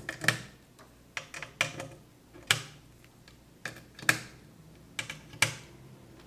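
Patch cables being handled and plugged into the 3.5 mm jacks of a Eurorack modular synthesizer: a series of sharp, irregular clicks and clacks with quiet gaps between them.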